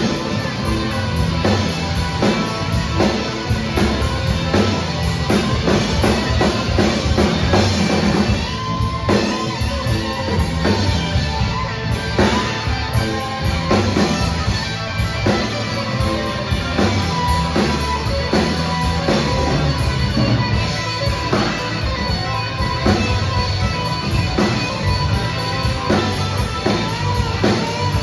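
Live rock band playing electric guitars, bass guitar and drum kit at a steady beat, with a lead line of held notes that bend in pitch.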